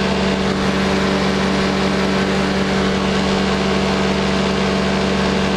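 Powered parachute's engine running steadily in cruise flight, a constant unbroken drone.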